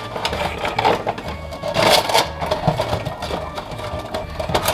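Background music with a steady beat over the rustle and scrape of a cardboard Funko Pop box and its plastic insert being opened and handled, loudest about two seconds in.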